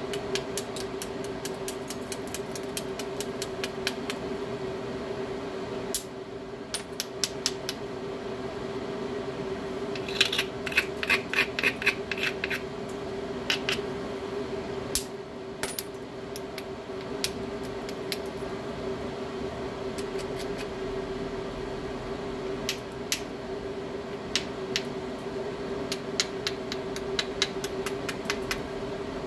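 Hammerstone striking the edge of a stone biface in quick runs of sharp clicking taps, several a second, with pauses between the runs; some strikes near the middle ring briefly. A steady hum of a fan or air conditioner underlies it.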